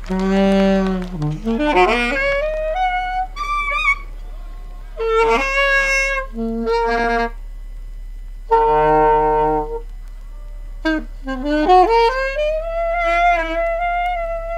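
Unaccompanied jazz saxophones playing free, broken phrases and held notes with short pauses between them, several notes sliding up in pitch, from low notes to high ones. A steady low mains hum runs underneath.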